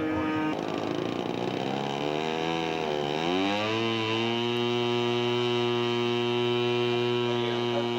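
Model airplane engine running; its pitch wavers and dips, then climbs about three seconds in and holds a steady high-pitched run.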